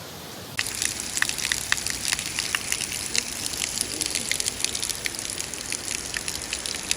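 Waterfall rushing and splashing, a dense steady wash full of sharp spattering droplet sounds. It comes in suddenly and louder about half a second in.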